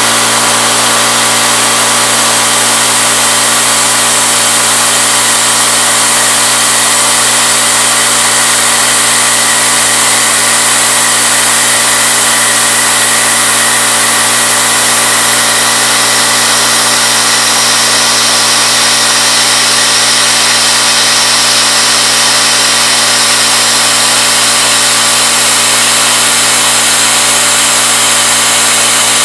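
CNC-retrofit Bridgeport knee mill running steadily, its spindle turning a 3/8-inch end mill at 2200 RPM as it cuts aluminum: a continuous, even machine hum with a hissing cutting noise over it.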